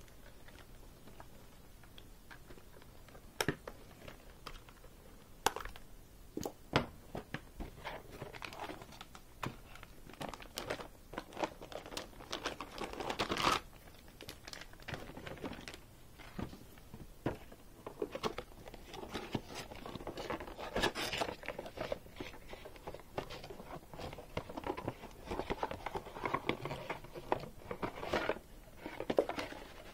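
Hands handling a football helmet, visor hardware and packaging: rustling and crinkling of plastic and cardboard with scattered sharp clicks and knocks, loudest in a longer rustle about halfway through.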